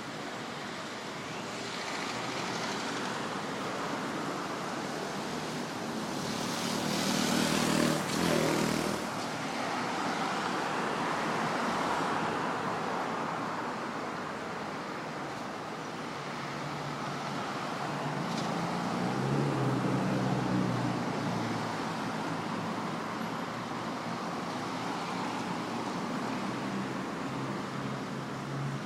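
Road traffic: a steady wash of tyre and engine noise that swells as vehicles pass, twice clearly.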